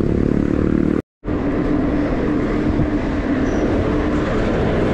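Steady rumble of wind and road noise on a bicycle-mounted action camera while riding, with a steady hum running through it. The sound drops out for a moment about a second in.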